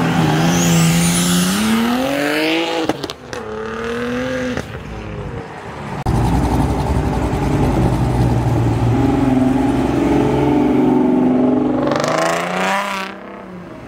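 Cars accelerating hard past the roadside one after another. Engine revs climb for about three seconds, drop at a gear change and climb again. After an abrupt change about six seconds in comes steadier engine noise, then another car revs up and pulls away near the end.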